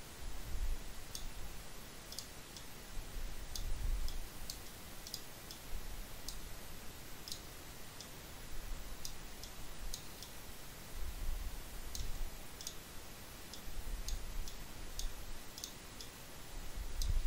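Computer mouse clicking: single sharp clicks at uneven intervals, roughly one a second, over a faint low rumble that rises and falls.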